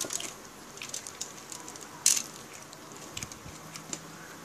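Close-up eating sounds: wet mouth clicks and smacks from chewing grilled chicken inasal, and the squish of the meat being pulled apart by hand, with a sharp crackle about two seconds in.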